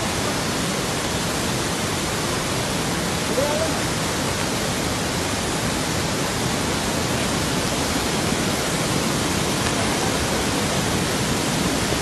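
Large waterfall in flood, a steady, loud rush of water. It is swollen with muddy brown floodwater.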